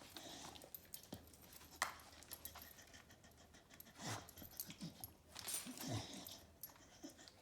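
Dog sniffing and breathing quietly as it noses through items, with a few short snuffles about two seconds apart.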